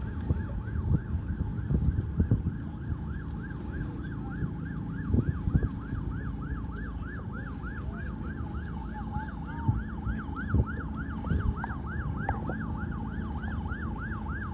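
Emergency vehicle siren in a fast yelp, rising and falling about three to four times a second, over low rumbling noise with a few thumps.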